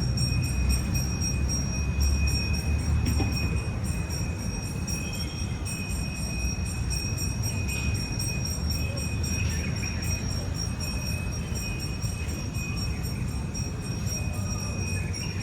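Outdoor nature ambience: a steady low rumble with a continuous high-pitched insect drone over it, and a few faint bird chirps scattered through.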